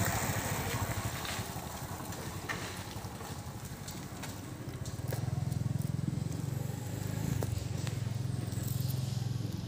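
A low engine hum, louder from about five seconds in, with a few faint clicks over it.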